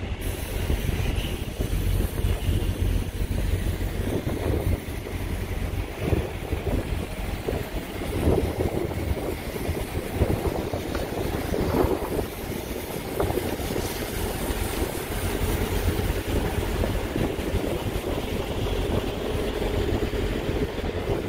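Wind noise on the microphone: a steady low rumble over a noisy background.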